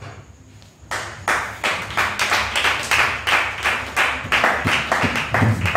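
A small group of people clapping their hands in a steady rhythm, about three claps a second, starting about a second in.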